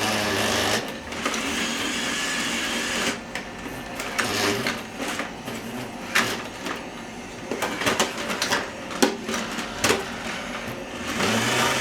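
iRobot Roomba robot vacuum cleaning the floor: a steady whir for the first three seconds, then quieter running broken by uneven clicks and knocks.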